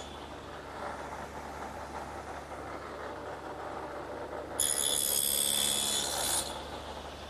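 Table saw with an adjustable two-blade dado cutter running steadily, then about four and a half seconds in a louder, higher-pitched cut of nearly two seconds as the cutter passes through the wood, cutting a 3/8-inch box-joint slot.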